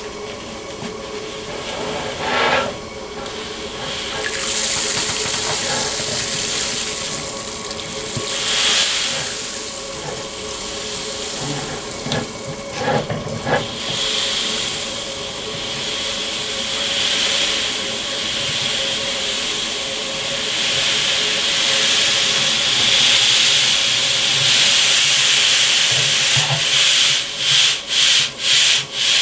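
Crushed malt grain sliding and pouring out of a tipped aluminium pot into a second pot of water, mashing in: a steady hissing rush that swells as the pour goes on and comes in several quick surges near the end.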